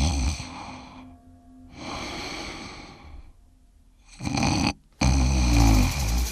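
A person snoring in loud, rough bouts with short silent pauses between them, one short snort a little past four seconds in and a long loud one near the end.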